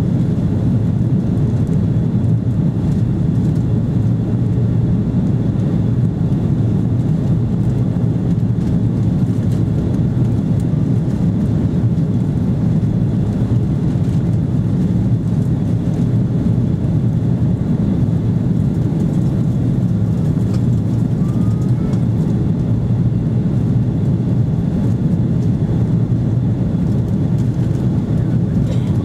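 Airbus A330 airliner cabin noise in flight: a steady low rumble of the engines and rushing air, unchanging throughout.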